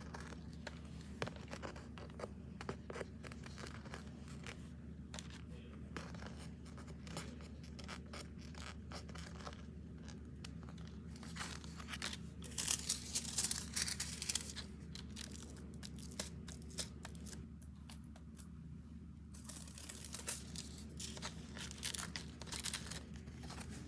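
Hand-work noises from making a small figure: scattered clicks, scrapes and rustles, with two louder tearing or rustling spells, one about halfway through and one near the end, over a steady low electrical hum.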